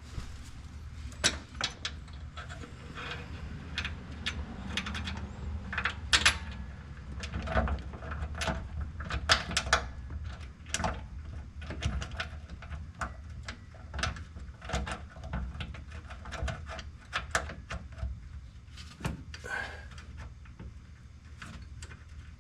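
Irregular metal clicks and clanks of hand tools working on a truck's bolts, over a steady low hum.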